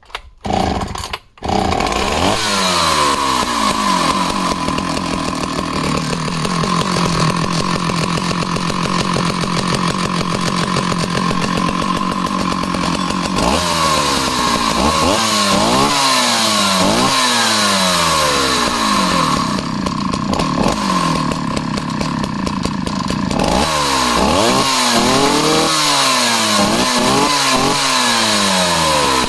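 Danarm 71 two-stroke chainsaw starting from cold after more than a month unused, catching about a second and a half in. The revs fall from fast idle to a steady idle, then the throttle is blipped repeatedly in two spells, about halfway through and again near the end.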